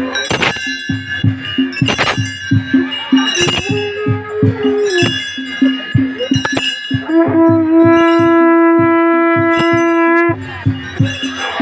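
Ritual music: drums beaten in a fast steady rhythm with bells ringing, over which a long horn-like tone is held, most plainly for about three seconds in the second half.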